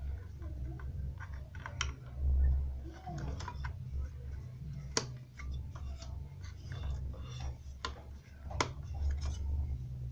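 Irregular sharp clicks and small taps, a dozen or so, over a steady low hum.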